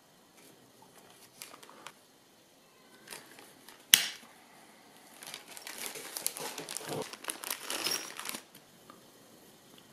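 Clear plastic bag crinkling and rustling as it is handled for about three seconds, after a single sharp snap about four seconds in.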